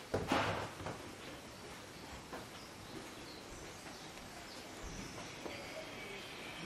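A short noisy burst in the first second, then faint, scattered bird chirps over a steady background hiss.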